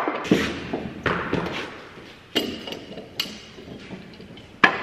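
Wooden boards being handled and knocked together: a series of sharp knocks and thuds at irregular intervals, some ringing briefly. The loudest knock comes near the end.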